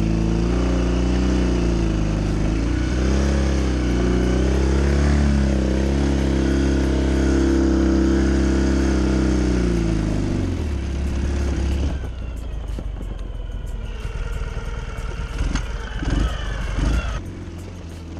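Ural 750 cc boxer-twin sidecar motorcycle engine running under load, its revs rising and falling. About ten seconds in the revs drop away, leaving a quieter, rougher rattle with a few sharp knocks near the end.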